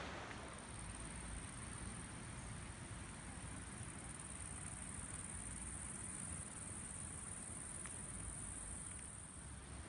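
A chorus of meadow insects trilling in one steady, high-pitched band, with a low rumble underneath.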